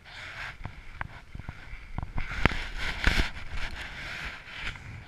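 Handling noise from jacket fabric rubbing over the camera microphone: a rustling scrape broken by many sharp knocks, loudest a little after the middle.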